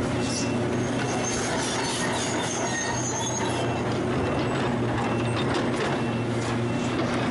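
Volvo tipper truck's diesel engine running as it reverses slowly, its reversing beeper sounding about once a second. A high squeal comes in about two seconds in and lasts a second or so.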